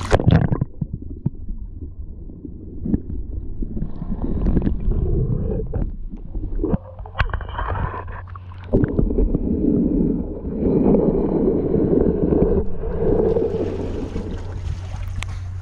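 A splash as a waterproof action camera goes into harbour seawater, then muffled underwater sloshing and gurgling heard through the camera housing. The sound turns brighter near the end as the camera comes back up above the surface.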